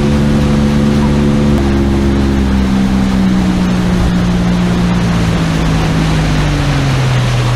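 Oil-injected two-stroke outboard motor driving a Mako 181 boat at speed. Its revs drop a step about a second and a half in, then keep falling slowly. Wind and rushing water from the hull run underneath.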